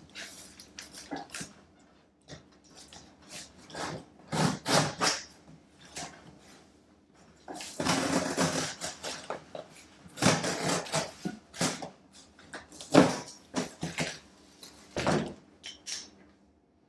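Box cutter slicing through a long corrugated cardboard box in a series of uneven strokes, some short and some drawn out, with the cardboard rustling as the cut top is handled.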